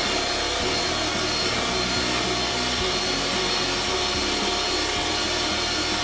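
Electric mixer motor running steadily with a constant whine, its beaters whipping cream toward stiff peaks.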